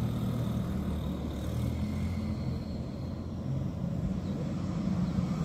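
Diesel locomotive engine running, a steady low rumble as the train approaches.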